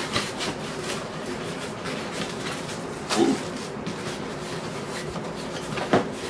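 Cardboard shipping box and plastic packaging being handled: scattered rustles and scrapes, with a louder rustle about three seconds in and a couple of sharp knocks near the end.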